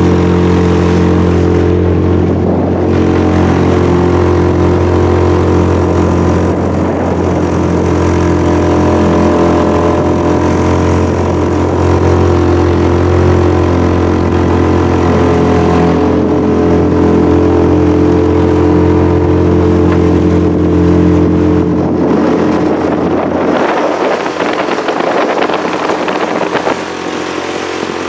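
Small boat's motor running steadily under way, with water and wind noise around it; about three-quarters of the way through the engine eases off and its deep hum fades.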